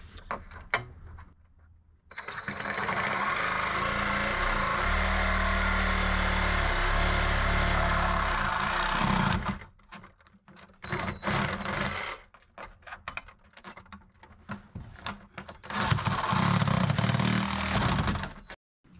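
A handheld power tool runs steadily in two spells, about seven seconds and then about two and a half seconds, with knocks and rattles of handling between them.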